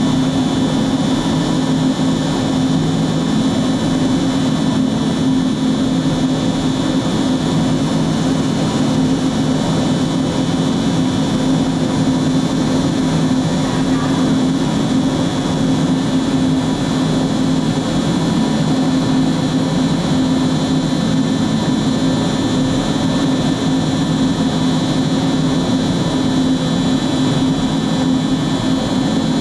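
MultiCam 5000 Series CNC router running with its spindle and dust extraction on, routing a sheet of plywood: a steady high whine over a low hum.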